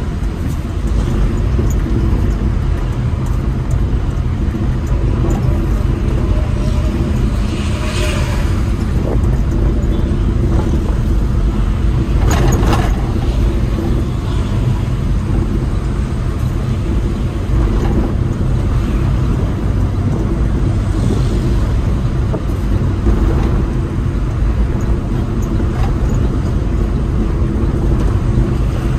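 Inside the cab of a Suzuki pickup on the move: steady engine running with loud low road and wind rumble. Two brief louder noises stand out partway through.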